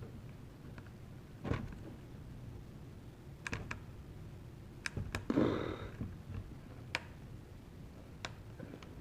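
Hands taking apart a drone: scattered small clicks and taps as its parts and tools are handled, with a brief louder rustle or scrape about five and a half seconds in.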